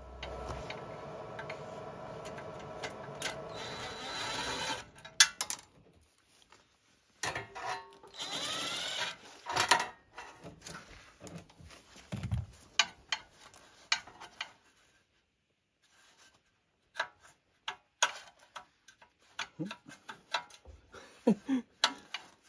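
Workshop work on a riding mower's exhaust pipe. A steady mechanical running noise lasts about five seconds. A second short run with a rising pitch comes about eight seconds in, followed by scattered clinks and knocks of metal parts being handled and fitted at the engine's exhaust port.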